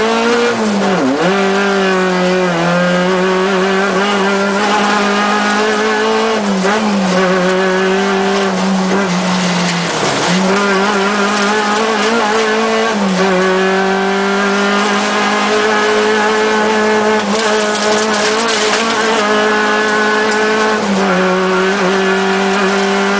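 VW Golf 3 rally car's engine heard from inside the cabin, running hard at high revs and holding a steady note, with several brief dips in pitch before it climbs back.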